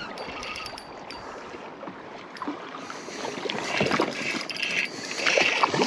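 Water lapping and splashing beside a drift boat as a small trout is reeled in on a spinning reel, with a few light ticks in the first second. The splashing grows louder over the last two seconds as the fish is drawn up to the surface.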